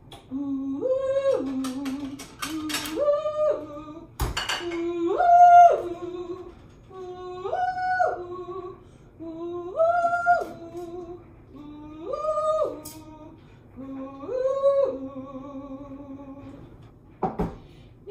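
A woman's voice singing a vocal warm-up exercise: seven repeats of a low note leaping up about an octave, held briefly and dropping back, each about two seconds long, the figure stepping up in pitch and then back down. Light kitchen clinks in the first few seconds, a sharp knock about four seconds in and another near the end.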